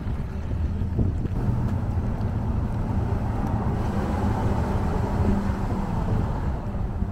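Car driving slowly on a muddy dirt road: a steady low rumble of engine and tyres.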